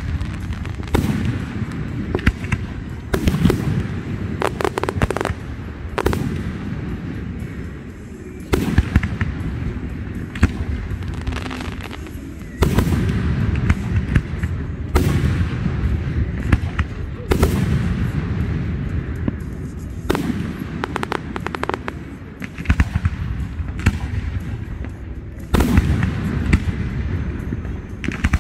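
Fireworks going off in a continuous display: aerial shells bursting one after another every two to three seconds, each with a deep low rumble, and in places quick strings of crackling reports.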